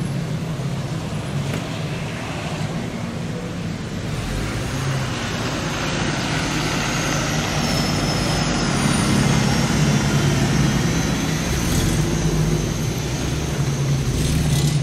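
Slow-moving street traffic: car engines running at low speed, with a bus driving past close by around the middle, the loudest part.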